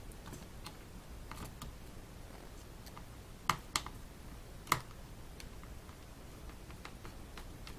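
Small clicks and ticks of screws being driven with a screwdriver into a 2.5-inch hard drive's metal mounting bracket, with three sharper clicks a little past the middle.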